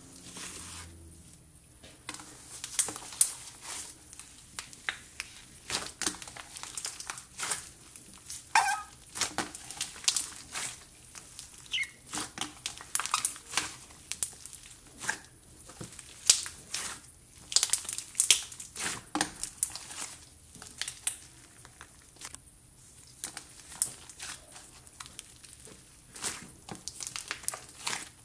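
Hands squishing and kneading a large mass of fluffy white cloud slime mixed with glitter slime, giving a dense, irregular run of sticky crackles and pops that starts about two seconds in.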